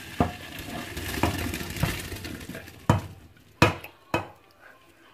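Hot pasta water and fusilli poured from a cooking pot into a colander in a stainless steel sink, the water gushing and splashing for about three seconds with a few knocks. Near the end come two sharp metallic clanks of the pot against the sink.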